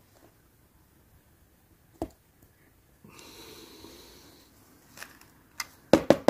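A small screwdriver tightening the crank screw on a Hornby model locomotive's driving wheel: a single faint click, a soft breath through the nose in the middle, then a quick run of sharp taps and clatter near the end as the tool is lifted off and set down on the table.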